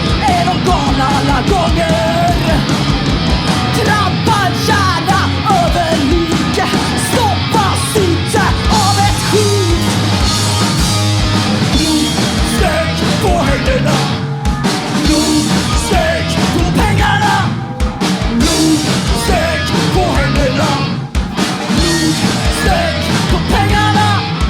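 Punk rock band playing live, loud and without a break.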